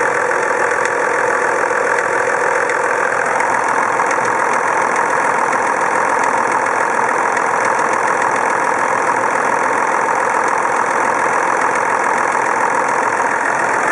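Toyota Land Cruiser HDJ80's straight-six turbo-diesel engine running, with an irregular rattling from somewhere in the engine.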